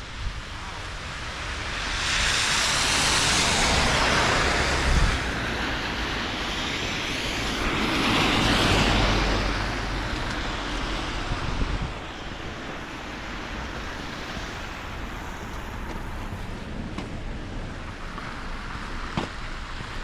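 Two vehicles passing on a wet, slushy street, their tyres hissing through the slush. The first swells and fades a couple of seconds in, the second around eight seconds in, over a steady low rumble of outdoor noise.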